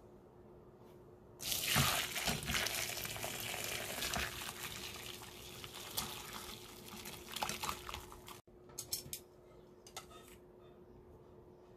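Hot broth poured from a pot through a fine-mesh strainer into a glass bowl, straining out the simmered konbu, dried shrimp and bonito. It is a steady splashing rush that starts about a second and a half in and stops abruptly after about seven seconds. A few faint clicks follow.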